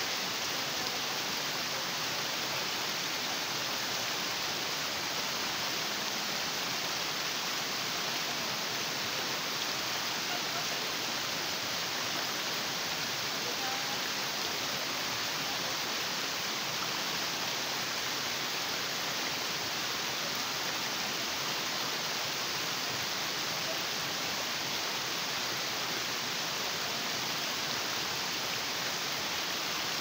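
Stream water rushing over sloping rock slabs and down small cascades, a steady, unbroken rush.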